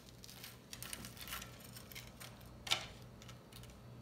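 Table knife spreading butter on toast on a plate: soft scrapes and light clicks, with one sharper click about two-thirds of the way through.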